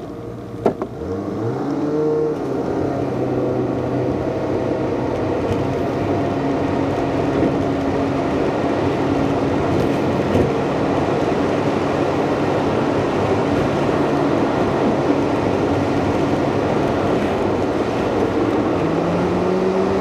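Car engine and tyre noise heard from inside a moving car: the engine pitch rises as the car pulls away about a second in, then holds steady while cruising, and rises again near the end. A single sharp click comes just before the car pulls away.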